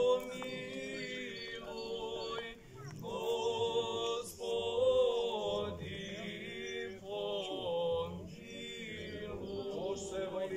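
Serbian Orthodox liturgical chant sung unaccompanied by a group of voices, held notes in phrases with short breaks between them.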